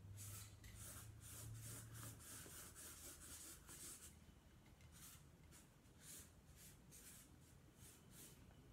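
Faint strokes of a Sharpie marker drawn across flip-chart paper: a quick run of strokes in the first four seconds, then separate strokes spaced about half a second to a second apart. A faint low hum sits under the first two seconds.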